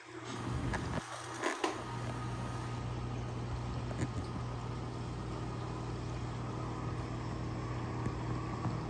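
Steady low hum of reef aquarium equipment (pumps moving water), with a few light knocks about a second in.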